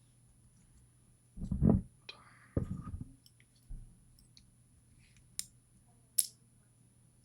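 Small clicks and knocks from handling a gutted pin-tumbler lock's driver pins and tools. Two heavier dull knocks come in the first three seconds, then two sharp, bright clicks near the end.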